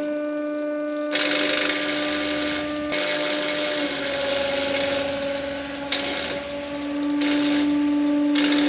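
Angle grinder running with a steady whine while its disc of long steel rods spins into a doll's hair, with a rough hiss over it. The motor slows slightly about four seconds in as it takes load, and picks up speed again near seven seconds.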